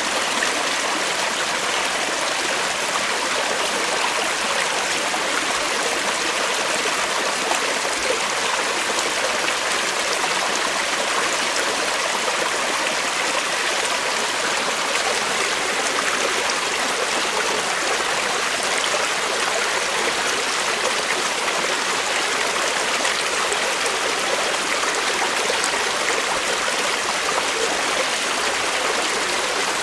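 Creek water flowing over rocks, a steady, even rush with trickling.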